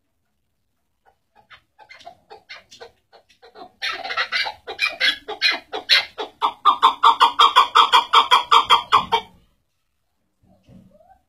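Chukar partridge calling: a series of short clucking chuk notes that starts soft, grows loud about four seconds in, runs in a quick even rhythm of about five notes a second, then stops about nine seconds in.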